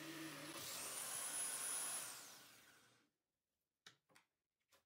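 Drill press turning a hole saw through plywood; about half a second in the low hum gives way to a higher whine that rises and grows louder, then the motor winds down and stops about three seconds in. A few light knocks follow.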